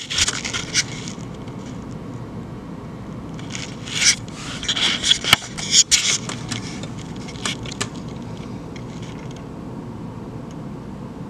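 Scraping and rubbing handling noise as a handheld camera is moved in close to a fluorescent tube, in irregular hissy bursts over a faint steady background.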